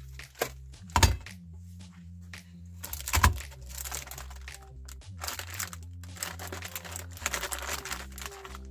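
Electric meat grinder running with a steady low hum while salty biscuits are crushed in it, crackling and crunching, densest from about three seconds in. Two sharp knocks stand out, about one and three seconds in.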